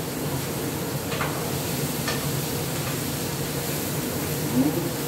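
Asparagus cooking in a pan on a gas stove, a steady hiss, with a few faint clinks and a brief scrape of a utensil stirring in the pan, the loudest about four and a half seconds in.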